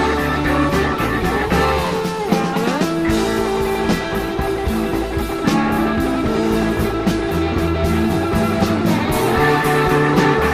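Blues-rock background music with guitar and a steady bass line, no singing, and guitar notes that slide up and down in pitch.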